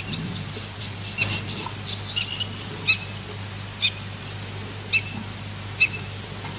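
A bird calling: a quick cluster of chirps, then single short, sharp high calls about once a second, over a steady background hiss and low hum.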